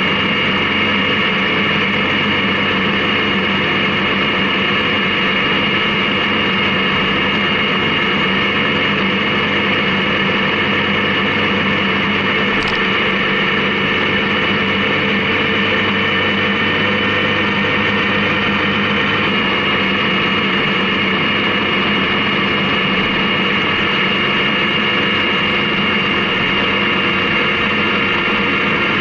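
Honda CB750K motorcycle's inline-four engine running at a steady cruise under a constant rush of wind noise, its note shifting slightly about two-thirds of the way through.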